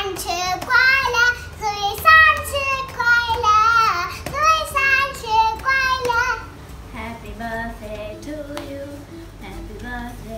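A young girl singing in a high voice for about the first six seconds, then softer, lower voices talking.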